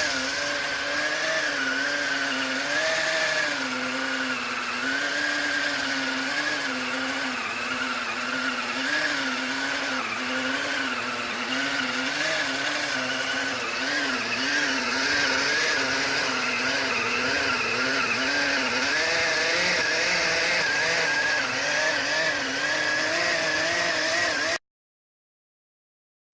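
Mixer grinder motor running a food-processor attachment that kneads dough: a steady whine whose pitch wavers up and down as the load shifts. It stops abruptly near the end.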